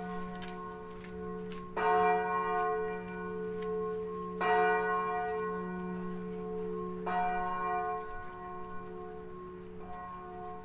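The middle bell of a church tower swinging and ringing for mass, one stroke about every two and a half seconds, each ringing on. The fourth stroke near the end is clearly fainter as the ringing dies down.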